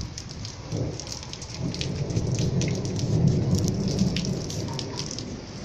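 Rain falling with scattered drop ticks, and a low rumble of thunder that swells about a second and a half in and fades toward the end.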